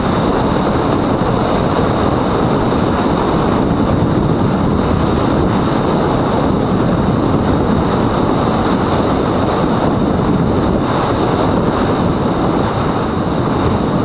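Wind rushing over the onboard camera microphone of a mini Talon FPV flying wing in flight, a loud steady rumble, with a faint steady high whine above it.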